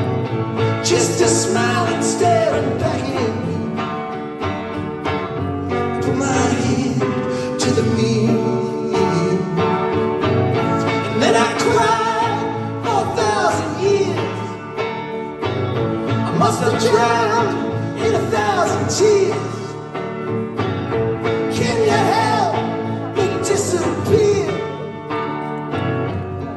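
Live band music: electric guitars playing with singing voices, amplified through a theatre PA.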